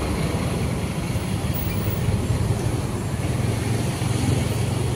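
Steady engine and road noise of slow, dense city traffic, with a large bus running close alongside.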